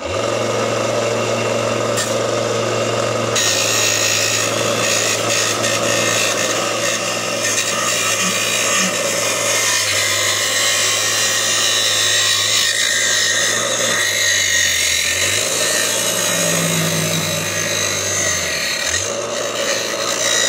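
Benchtop belt-and-disc sander running, grinding a steel angle iron pressed against it: a steady motor hum under a harsh grinding hiss, the hum dipping briefly twice in the second half. The owner says it sounds out of balance because the disc has slid down.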